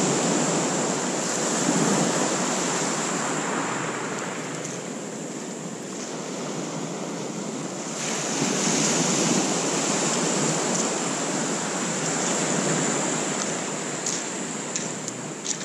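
Small surf breaking and washing up a shingle beach, swelling twice, in the first couple of seconds and again in the middle.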